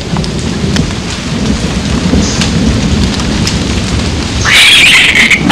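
Thunderstorm in rainforest: a loud, low rolling rumble of thunder under rain, then a louder burst of higher-pitched noise about four and a half seconds in.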